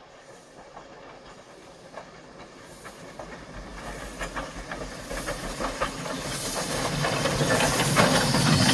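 Soviet L-class steam locomotive L-2180 approaching with its train, growing steadily louder as it comes near: sharp exhaust beats over a rising hiss of steam, loudest near the end as it passes close by.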